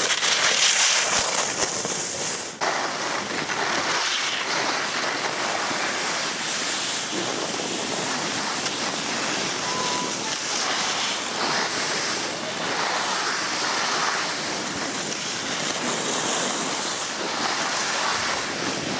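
Skis scraping and hissing over packed, chopped-up piste snow while skiing downhill, mixed with wind rushing over the microphone. The noise is steady, swelling and easing with the turns, loudest in the first two seconds.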